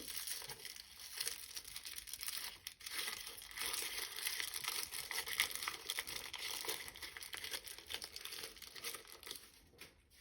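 Thin packaging of a small toy being crinkled and crumpled by hand as it is unwrapped: a dense, continuous crackle of small ticks that stops abruptly at the end.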